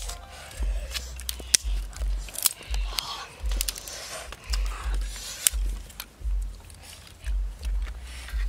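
Wind buffeting the microphone in uneven low rumbles, with sharp clicks and snaps of dry twigs as sticks are handled and stacked for a campfire.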